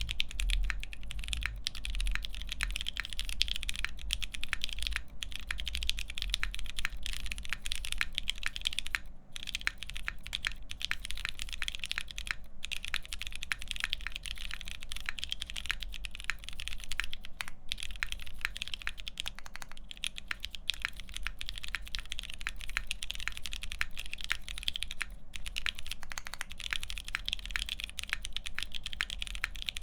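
Continuous fast typing on a Salvation mechanical keyboard with lubed Pewter switches, a half FR-4 plate and Hammerworks CRP PBT keycaps: a dense, steady patter of keystrokes that breaks off for a moment three times. A low hum runs underneath.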